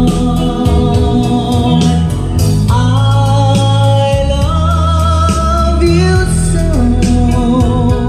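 Recorded music with a sung melody over a strong bass line and steady percussion, played loud as a speaker sound test.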